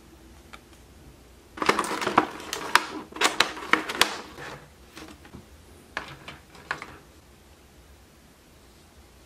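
Thin vacuum-formed plastic packaging crinkling and clicking as it is handled and lifted: a dense run of crackles and snaps for about three seconds, then a few more clicks a couple of seconds later.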